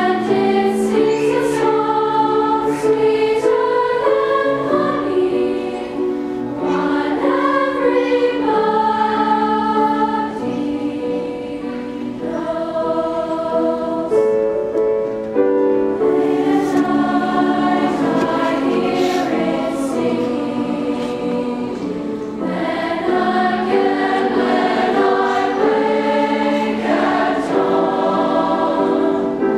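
Large mixed junior-high choir singing in parts with grand piano accompaniment: long held phrases that swell and ease off.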